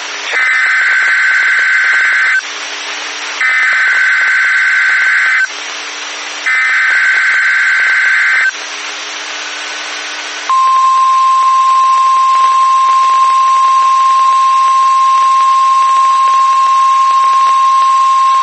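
NOAA Weather Radio Emergency Alert System tones: three buzzing two-second bursts of SAME digital header data, about a second apart. About ten seconds in, the steady single-pitch 1050 Hz warning alarm tone begins and holds. The sequence opens an alert message, here a required test.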